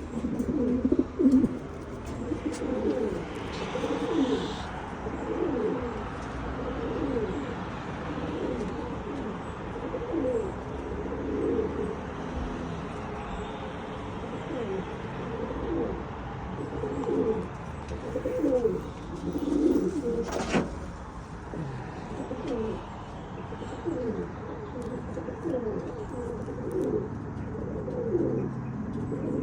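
A flock of domestic racing pigeons cooing, many short falling coos overlapping without a break. A single sharp click about twenty seconds in.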